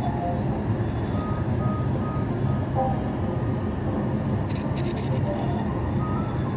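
A steady low hum with quiet background music over it, a few short held notes now and then.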